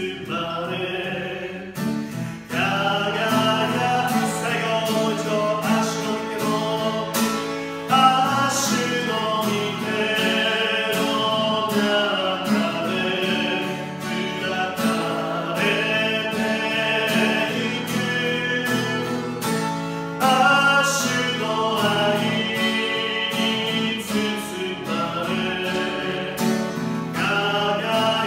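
A man singing a Japanese worship song in a steady voice while strumming chords on a Takamine acoustic guitar, with a short break in the singing about two seconds in.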